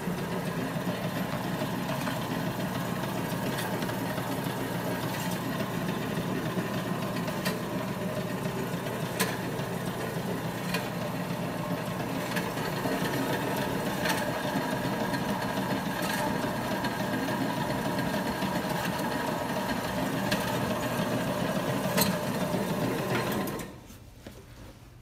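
Electric meat slicer (CCONLY RED MS02 with a 4.5 mm blade set) running steadily while slicing flank steak into strips, with scattered light clicks and knocks. The machine sound cuts off abruptly near the end.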